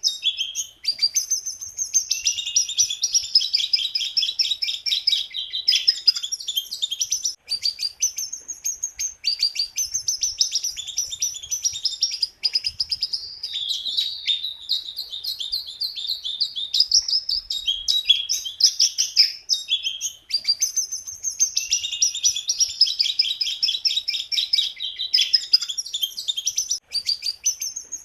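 A jongkangan songbird singing non-stop: a fast, chattering stream of high notes and rapid trills, with only brief pauses between phrases.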